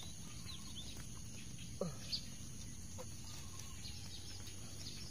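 Birds chirping, with a couple of short calls that fall steeply in pitch, over a faint steady hum.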